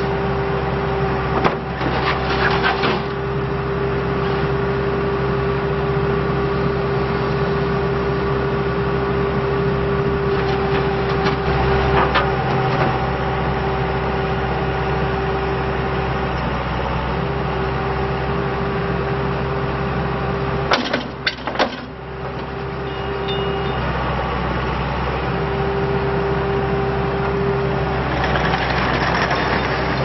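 2006 Gehl CTL70 compact track loader's diesel engine running steadily while the machine drives and works its loader arms, with a steady whine that cuts out and returns several times. Short bursts of clatter come near the start and near the end.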